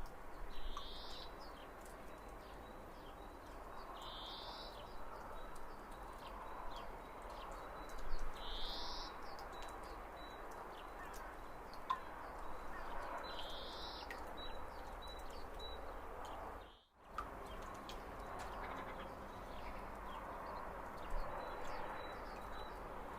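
Springtime outdoor ambience of birds calling. One bird gives a short high call four times, several seconds apart, over a steady background of more distant birdsong. The sound cuts out completely for a moment about two-thirds of the way through.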